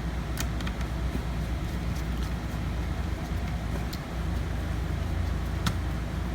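A few light clicks from small parts being handled inside an open laptop, over a steady low hum. Two or three clicks come just after the start and one comes near the end.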